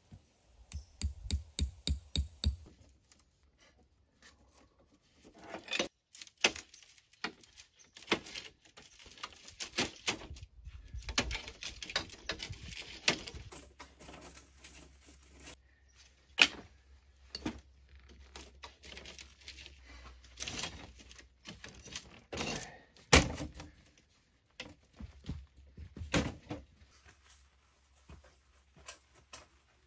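Camp gear being handled and set out: a quick run of about eight knocks in the first couple of seconds, then scattered thunks, clatters and rustling, with two sharper knocks standing out in the second half.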